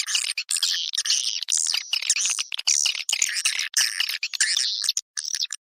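Edible-nest swiftlets twittering in dense, rapid, high chirps with brief breaks: a swiftlet lure call of the kind played to draw the birds into a nesting house.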